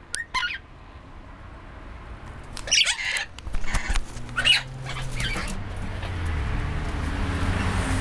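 Pet parrots in an aviary giving a few short, harsh squawks, about three and four and a half seconds in, over camera-handling noise. A low, steady rumble builds through the second half.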